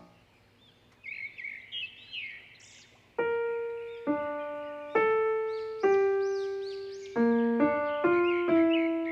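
After about a second of near silence, a bird chirps a quick series of short, arched call notes. From about three seconds in, slow single piano notes are struck roughly once a second, each dying away, while faint bird calls continue above them.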